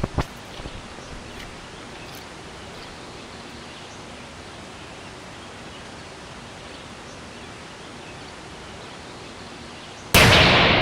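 Quiet outdoor background, then about ten seconds in a single very loud blast from a homemade 50-gram spiked, brown-wrapped firecracker, with a long echoing tail.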